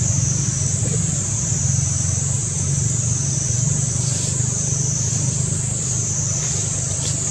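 Steady low hum of a vehicle engine running, under a high, shrill insect chorus that swells and fades about every second and a half.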